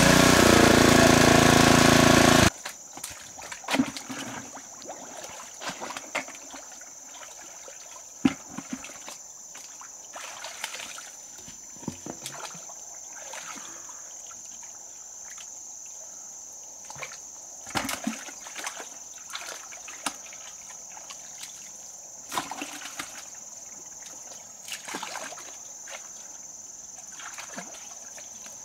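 A water pump's engine runs loudly for about two and a half seconds and then cuts off abruptly. After that come scattered splashes and sloshes in shallow water, with a faint, steady high-pitched tone underneath.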